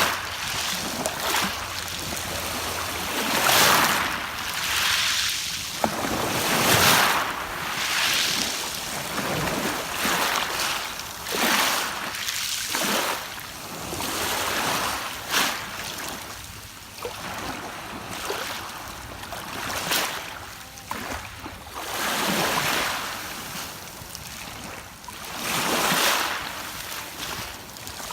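Sea waves washing in and out over a pebble beach, the water and stones making a hissing, rattling rush that swells every few seconds as each wave comes in.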